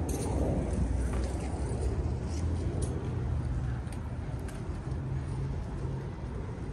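Low, steady rumble of city street traffic, with a few faint clicks over it.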